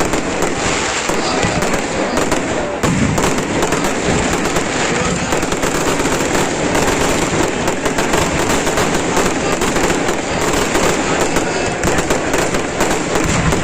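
Fireworks and firecrackers going off without pause: dense crackling with many sharp pops and bangs overlapping.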